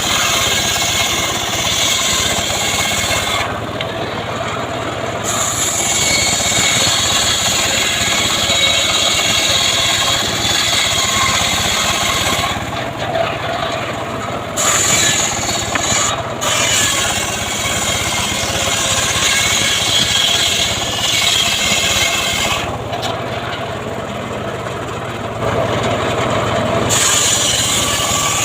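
Homemade band sawmill cutting sengon (albizia) wood: a continuous rasping, hissing cut over a steady low hum from the machine. The high rasp drops away briefly three times, about four seconds in, around thirteen seconds and for a few seconds near the end, then comes back.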